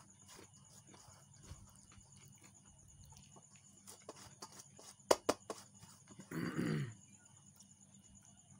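Fingers scraping and tapping a stainless steel plate, with light clicks and two sharp taps about five seconds in. Just after, the loudest sound: a short call, about half a second long, falling in pitch.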